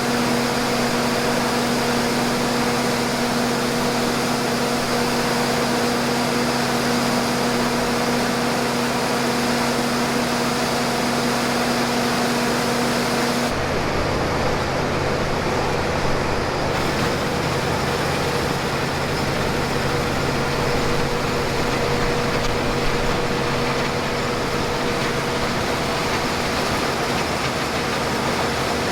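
International 1460 combine running steadily, a machine hum with a steady whine over it. About halfway through the sound changes: the whine drops out and a deeper rumble comes in.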